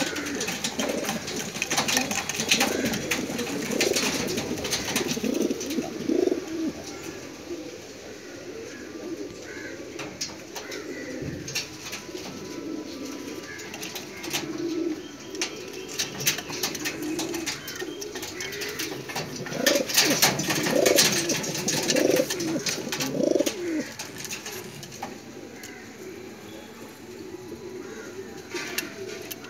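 A group of white Modena pigeons cooing over and over, the low calls overlapping, with scattered sharp clicks. The cooing is busiest about two-thirds of the way through.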